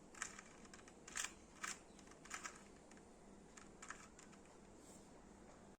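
Faint, irregular clicks of a 2x2 Rubik's Cube as its layers are turned through an algorithm, about half a dozen short clicks spread over several seconds.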